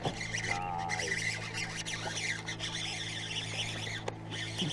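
Birds chirping and calling, with one louder call about half a second in, over a steady low hum and a few sharp clicks.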